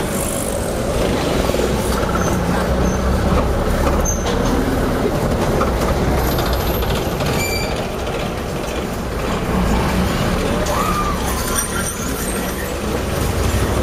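Steady engine rumble and road noise of a taxi driving through town traffic, heard from inside the car.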